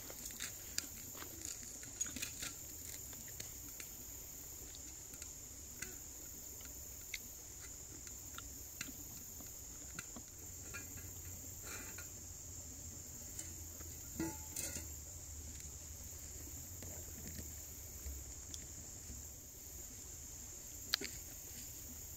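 Insects droning steadily in a high-pitched chorus, with scattered light clicks and taps of a knife and fork on a wooden cutting board; one sharper tap comes near the end.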